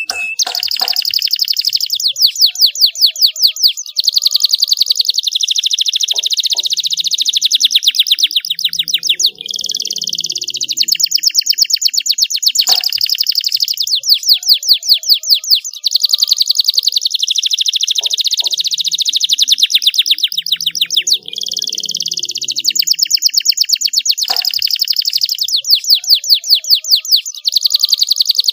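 Domestic canary singing a long, loud song of rapid high trills and rolls, phrase after phrase with only short breaks.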